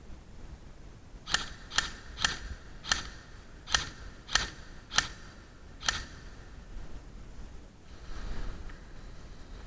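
Airsoft gun firing eight single shots, sharp snapping clicks about half a second to a second apart, then a soft rustle.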